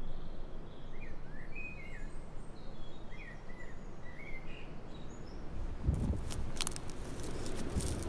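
Wind buffeting the microphone as a steady low rumble, with a small bird chirping several times in the first half. From about six seconds in, footsteps in boots crunch and rustle through grass and dry bracken stems.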